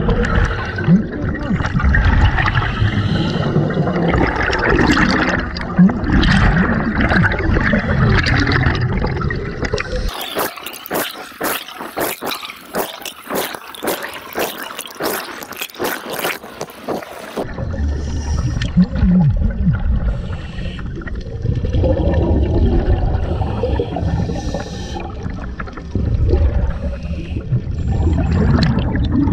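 Scuba regulator exhaust bubbles gurgling underwater, heard through the camera housing and swelling and fading in bursts. For about seven seconds in the middle, the low bubbling gives way to a dense crackle of fine clicks.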